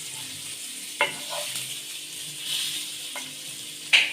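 Chicken pieces frying in hot oil in a pan, sizzling steadily. A few sharp clicks cut through it, one about a second in, one after three seconds and the loudest near the end.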